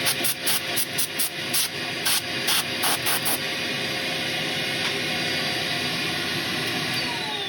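Wood lathe running while sandpaper is pressed to the spinning wooden gear knob in quick, irregular strokes for the first few seconds, each a short hiss. Near the end the lathe is switched off and its motor whine falls in pitch as it spins down.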